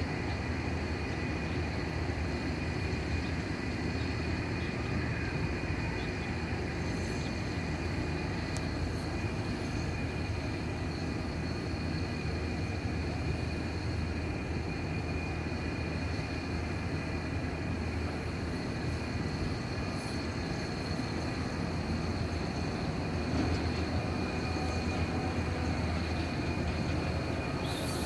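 Steady low rumble with two faint, steady high-pitched tones over it, unchanging throughout.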